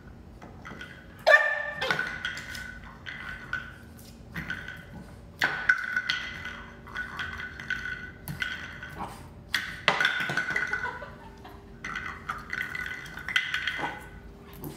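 A hard cow hoof knocking and clattering on a hardwood floor as a puppy noses and bats it about: a string of sharp knocks, each with a short ringing after it.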